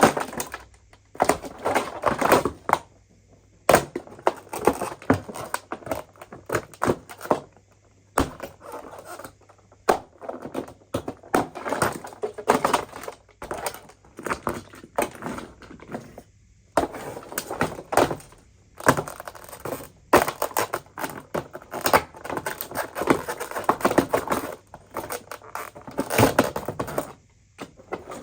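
Parts of a broken coffee machine being broken up or taken apart: irregular bursts of cracking, clattering and knocking from hard plastic and metal pieces, with short pauses between the bursts.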